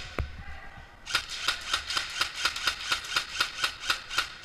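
Airsoft rifle firing a rapid string of shots, about five a second, beginning about a second in, with a single click just before.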